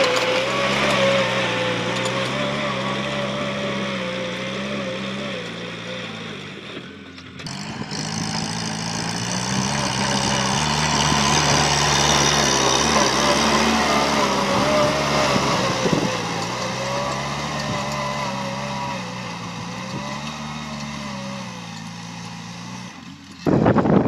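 Kubota tractor's diesel engine running steadily under load while pulling a disc plow through soil, its pitch wavering slightly as the load changes. Wind buffets the microphone right at the end.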